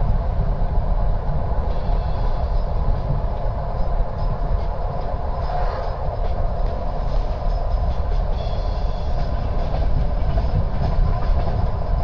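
Train wheels clacking over the rail joints under a steady, heavy low rumble, heard from inside the carriage.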